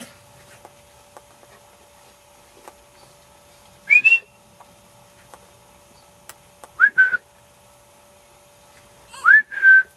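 A person whistling three short whistles, about three seconds apart, each rising in pitch and then briefly held: whistles calling the dogs, which turn and run toward the whistler.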